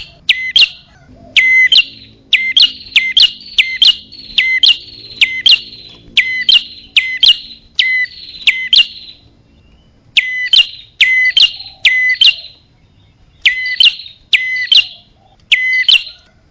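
Prinia (prenjak) calls played as a bird-lure recording: sharp, loud chirps repeated about twice a second, each a quick downward-sweeping note. There is a short break about nine seconds in.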